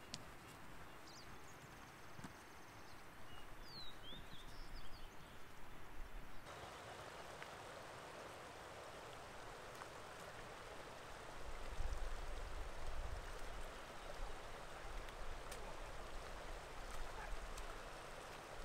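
Quiet outdoor ambience with a few short bird chirps. About six seconds in it gives way to the steady rush of a small mountain creek, and a low rumble joins it near twelve seconds.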